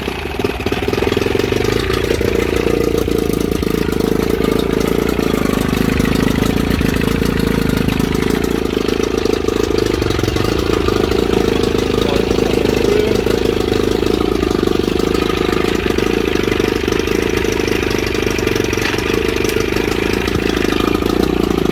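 1987 Johnson 25 hp two-stroke outboard motor running steadily just after being started, getting louder about half a second in and then holding an even speed.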